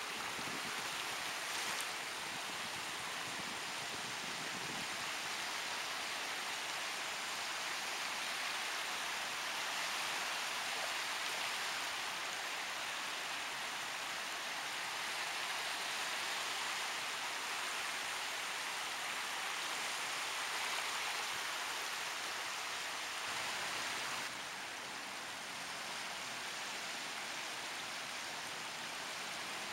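Small sea waves washing in: a steady, even hiss of surf with no distinct breaks. About 24 seconds in it drops slightly and changes tone.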